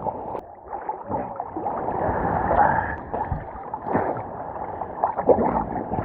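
Water sloshing and gurgling around a camera held in the water by a swimmer, muffled and irregular, with scattered knocks of water hitting the housing.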